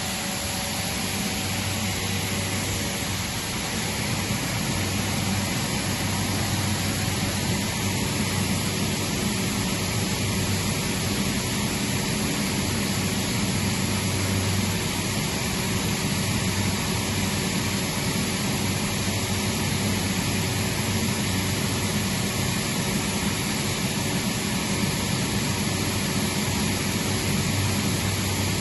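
Atlas Copco GA160FF oil-injected rotary screw air compressor running steadily: a constant low hum under a broad rushing noise.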